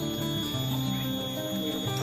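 Background music: a slow instrumental melody of held notes stepping up and down.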